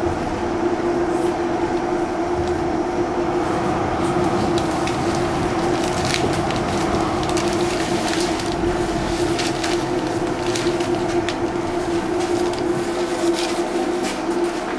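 Calgary CTrain light-rail car heard from inside: a steady electric hum with a scatter of short clicks and rattles through the middle of the stretch.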